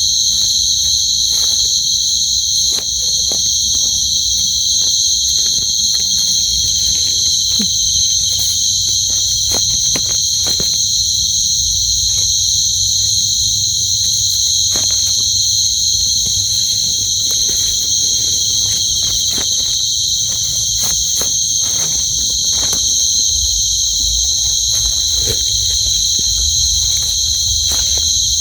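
Dense chorus of night insects making a loud, steady, high trill without a break. Scattered faint rustles and clicks sound beneath it.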